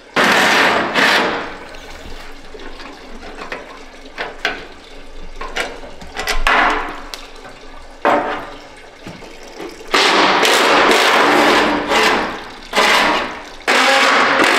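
A power wrench running in about half a dozen short hissing bursts, the longest lasting about two seconds near the end, as it spins out the bolts holding a truck's front sheet metal and radiator support. Antifreeze trickles steadily from the draining radiator underneath.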